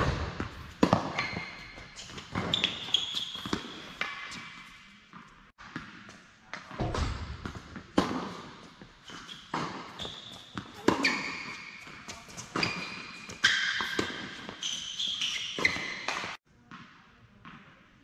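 Tennis rally on an indoor court: sharp racket strikes and ball bounces, roughly one every second or so, echoing in a large hall, with short high squeaks of shoes on the court. The sound cuts off suddenly near the end.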